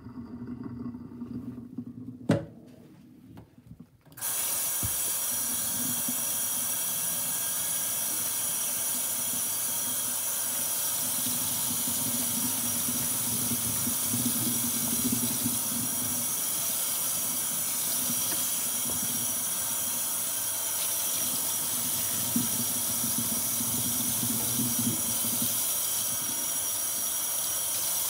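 Soft sponges soaked in mouthwash lather squelching as they are squeezed in a stainless steel sink, with a brief sharp knock about two seconds in. About four seconds in, the faucet comes on and water runs steadily into the sink while the sponges are squeezed and rinsed under the stream.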